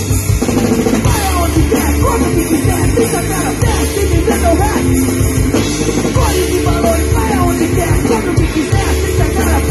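Live punk rock band playing loud: electric guitars, bass and drum kit, with a singer's vocals over them.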